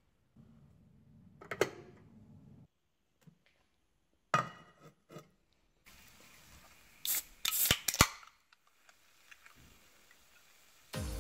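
A can of Monster Energy opened by its pull tab: sharp snaps with a short fizzing hiss of escaping carbonation, after a few handling clicks and knocks.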